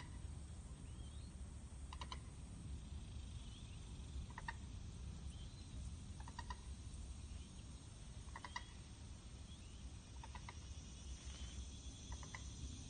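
Common gallinule parent giving quiet clucking calls: short bursts of quick clicks, one burst about every two seconds.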